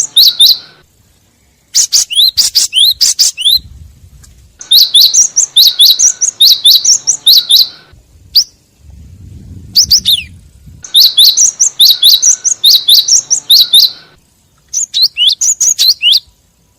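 Cinereous tit (gelatik batu) calls used as a bird lure: loud phrases of rapid, sharp down-slurred chirps, several a second, each phrase lasting one to three seconds and separated by short pauses.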